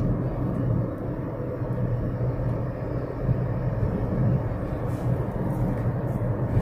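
Steady engine and road noise inside a moving Toyota car's cabin, a low, even rumble.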